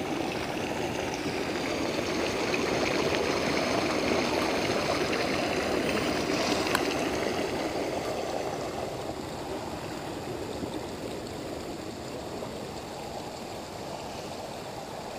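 Shallow rocky-bottomed creek running over stones, the water swirling around boots wading through it. The rush swells a couple of seconds in and eases off after about eight seconds.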